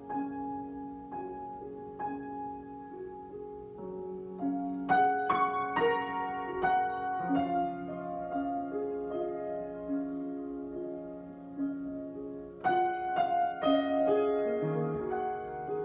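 Solo piano improvisation: soft sustained chords that grow louder, with firmer struck notes about five seconds in and again about thirteen seconds in.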